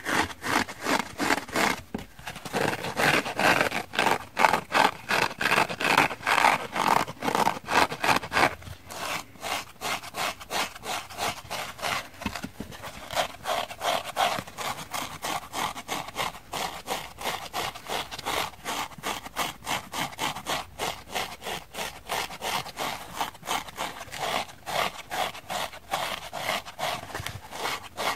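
Fingernails scratching dry kitchen sponges in quick, rasping strokes, several a second. First comes the purple scouring-pad side, then, from about eight seconds in, the softer and quieter pink foam sponge.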